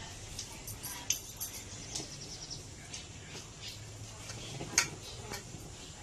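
Wooden parts of a backstrap loom knocking and clicking as a gale is woven, in a string of irregular sharp clicks, the loudest about five seconds in.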